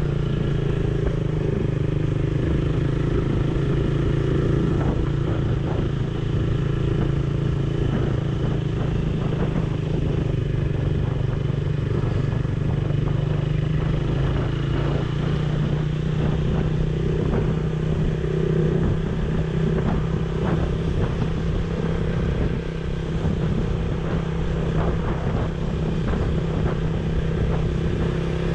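Motorcycle engine running steadily at cruising speed, heard from the rider's own bike, with frequent light clicks and knocks.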